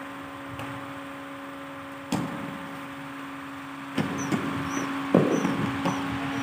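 Badminton rackets striking a shuttlecock: one sharp crack about two seconds in, then a quick run of hits in a rally from about four seconds, with one louder smash just after five seconds. Short high squeaks of shoes on the court come in among the hits, over a steady hum in the hall.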